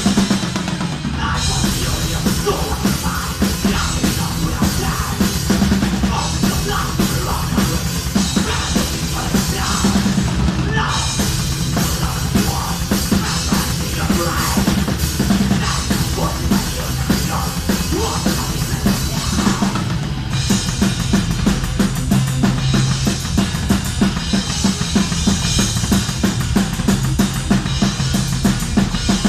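Heavy metal band playing live, with a drum kit pounding out a fast, steady beat of bass drum and snare under the full band.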